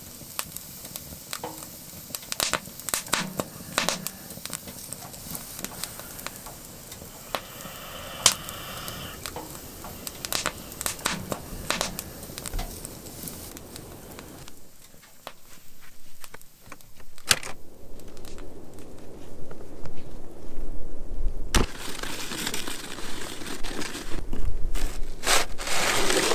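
Irregular crackles and crunches, then a snow shovel scraping and pushing snow off a solar panel near the end.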